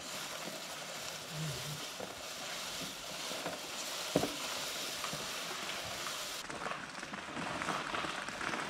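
Dry, brittle materials being handled by hand: a steady crackling rustle with a few sharp snaps, the loudest about four seconds in.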